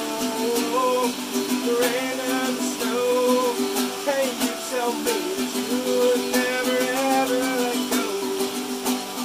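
A man singing while strumming chords on an acoustic guitar, with rain falling in the background.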